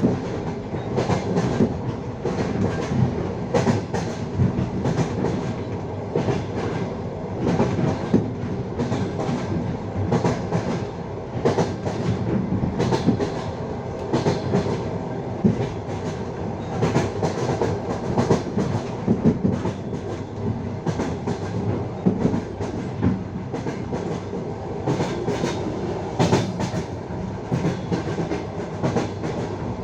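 Passenger train's wheels clacking over the rail joints at speed, heard from aboard the carriage: repeated sharp clicks over a steady rumble.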